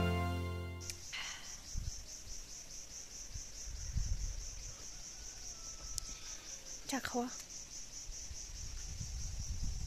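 Insects trilling in the surrounding vegetation: a steady, high, fast-pulsing drone that sets in about a second in, as background music fades away.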